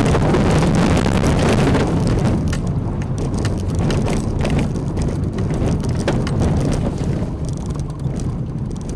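Renault Oroch pickup driving on a rough dirt road: steady engine and road noise inside the cab, with frequent short knocks and rattles from the body and stones under the tyres.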